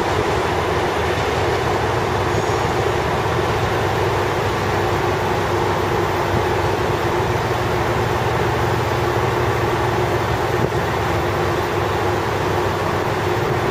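Diesel railcar engine running with a steady low drone.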